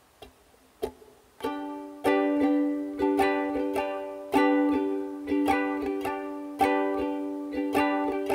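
Ukulele strumming chords in a steady rhythm as a song's instrumental intro, starting about a second and a half in after a few light taps.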